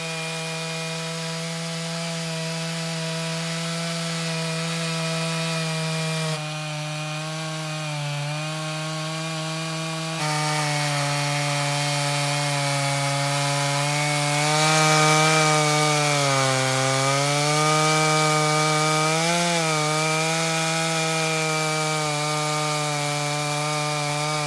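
Vintage Stihl 056 two-stroke chainsaw running at full throttle in an Alaskan chainsaw mill, ripping lengthwise through a chestnut log. The engine note holds steady under load, dipping in pitch briefly a couple of times in the second half as the cut bogs it down.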